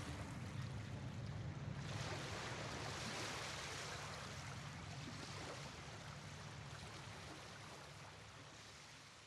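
Ocean surf washing on a beach, a steady rush that slowly fades out.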